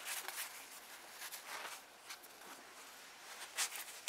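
Faint rustling and soft tearing as hands pull apart a soft cassava roti on a paper towel, in a few short irregular rustles that grow a little stronger near the end.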